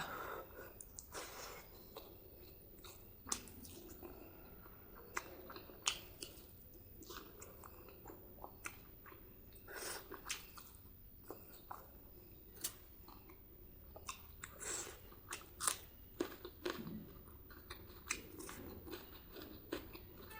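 A person chewing and biting mouthfuls of spicy pork and rice close to the microphone, with irregular wet mouth clicks and occasional crunches.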